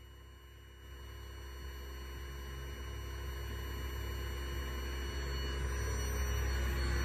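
Vibratory stress relief exciter, an eccentric-weight vibrator motor clamped to a welded steel frame, running up under the HB3000+ controller's automatic run: a low steady hum with faint thin high tones, growing steadily louder from about a second in.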